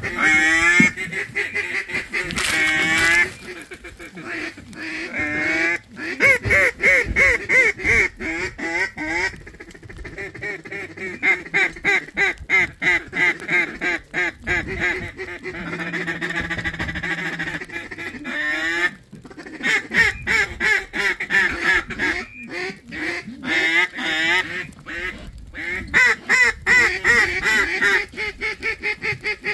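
Duck quacking in long runs of rapid, repeated quacks and chatter, broken by short pauses.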